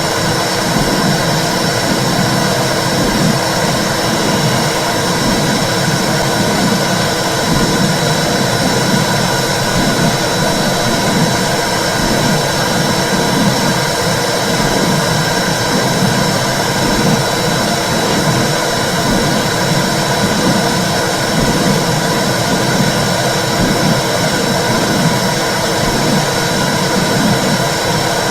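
Womb sound for soothing babies: a steady, loud whooshing rumble with a regular pulse in its low part, like blood flow heard inside the uterus.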